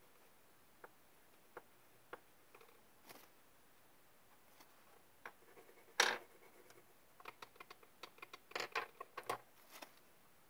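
Small clicks and taps of felt-tip markers and a pen being handled on paper and a wooden desk. A louder knock comes about six seconds in, and a quick run of ticks fills the last few seconds.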